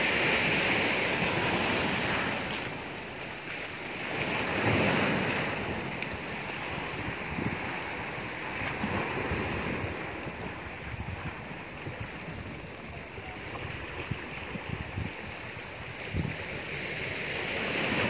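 Sea waves washing in and breaking over large boulders on a rocky shore: a continuous surf that swells and ebbs, louder about four seconds in and again near the end.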